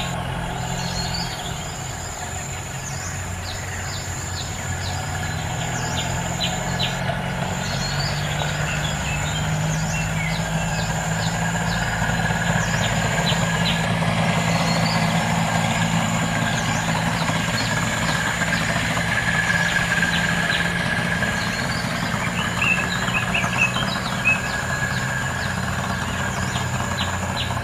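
A steady, low engine hum that grows somewhat louder partway through, with birds chirping now and then.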